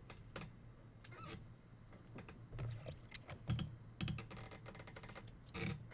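Trading cards and their packaging being handled: irregular light clicks, taps and rustles, with a few louder taps in the second half.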